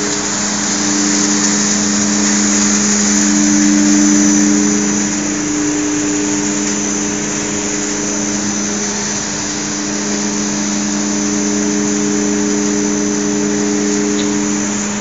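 Electric-motor-driven centrifugal blowers of a biomass gasifier plant running: a loud, steady machine hum with a rush of air over it, the hum's tones swelling and fading a little as the camera moves past.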